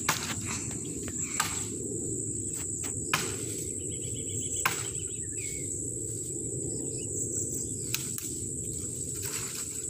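Chopping blows of a blade into the wood of a mango tree: about five sharp, separate chops, one to three seconds apart. Under them runs a steady, high-pitched insect drone.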